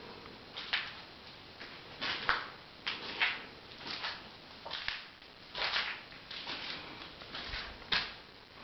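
Footsteps: a series of short scuffing steps, irregular, roughly one or two a second.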